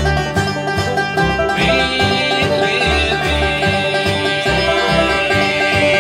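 Bluegrass string band playing an instrumental break: banjo and mandolin picking over strummed acoustic guitar and a pulsing upright bass line.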